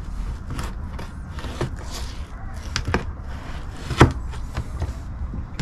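Fillet knife cutting through a striped bass's rib bones on a plastic cooler lid, with scattered clicks and knocks of the blade; the loudest knock comes about four seconds in.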